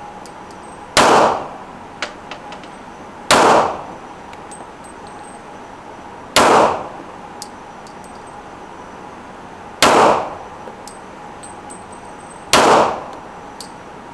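Glock 22 pistol in .40 S&W fired five times, single deliberate shots two to three seconds apart. Each shot is a sharp crack with a short echoing tail from the indoor range, with a few light ticks between shots.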